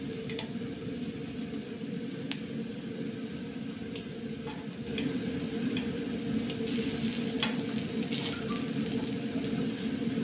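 Tomatoes, onion and garlic sizzling as they roast on aluminium foil over a gas stove burner, with a steady low rumble underneath that grows louder about halfway. Scattered short clicks and scrapes of a metal utensil on the foil as the vegetables are turned to keep them from burning or sticking.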